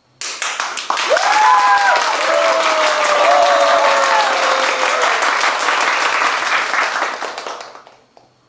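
A crowd applauding and cheering: dense clapping starts suddenly, with voices calling out over it for the first few seconds, then dies away about eight seconds in.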